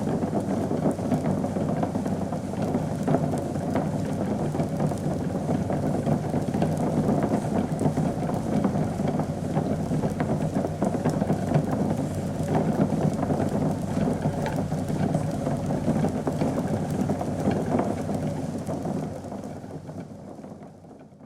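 Liquid bubbling vigorously at a boil, a dense steady churn thick with small pops, fading out near the end.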